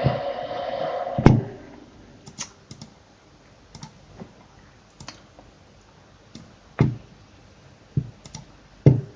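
Scattered clicks of a computer keyboard and mouse, one or two at a time with pauses between, the loudest three near the end. A loud hissing rush at the start stops about a second and a half in.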